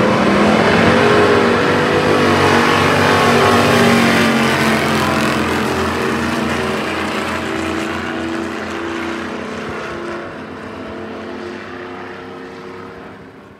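Drag-race car engine at full throttle down the strip, loud at first and then fading steadily as the car pulls away into the distance.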